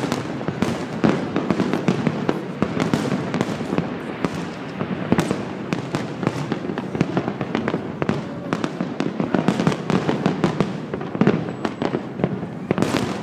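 Aerial fireworks bursting in a dense, unbroken barrage of rapid bangs and crackles, with one sharper bang near the end.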